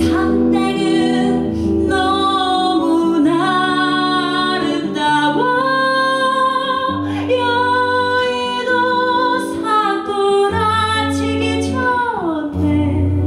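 A woman singing a Korean song, accompanying herself on acoustic guitar, with long held notes; near the end her voice slides down in pitch.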